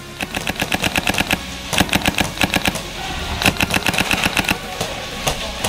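Airsoft rifle firing on full auto: three quick bursts of sharp, rapid clacks with short pauses between them, then a few single shots near the end.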